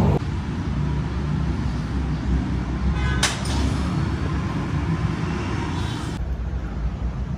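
Steady low rumble with a short, sharp clank about three seconds in.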